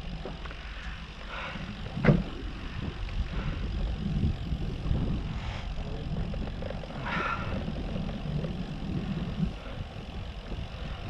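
Low, steady rumble of wind buffeting the microphone, with one sharp click about two seconds in.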